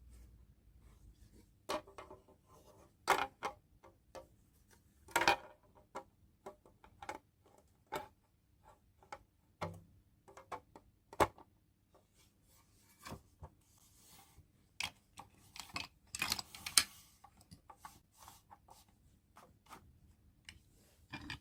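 Small objects being handled during an unboxing: irregular light clicks and taps, with short bursts of rustling, the loudest around five seconds in and again near sixteen to seventeen seconds.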